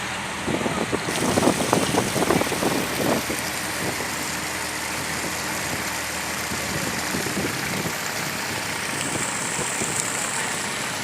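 Boat engine running steadily under way on a canal, with a louder, rough, choppy stretch from about half a second to three seconds in.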